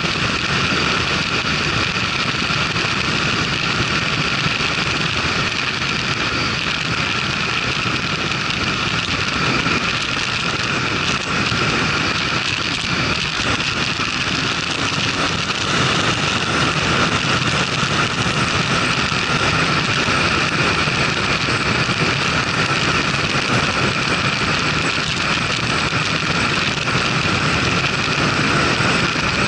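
Motorcycle running at road speed, with a steady rush of wind on the microphone.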